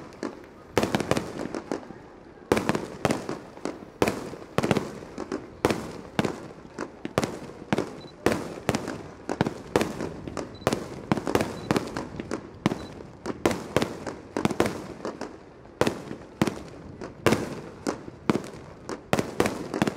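Fireworks show: aerial firework shells bursting in a rapid, irregular string of sharp bangs, about two a second, each with a short echoing tail.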